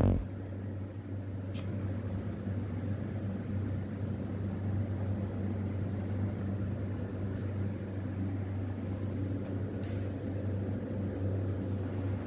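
Steady electrical hum of commercial kitchen machinery, a low drone with a faint hiss over it, and a couple of faint clicks.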